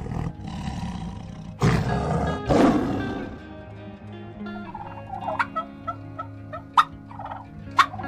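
A tiger growls in three loud, rough bursts in the first three seconds. Then a turkey gobbles in short calls from about five seconds in, over soft background music.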